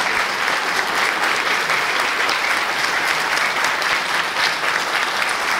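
Audience applauding, a dense and steady clapping with no let-up.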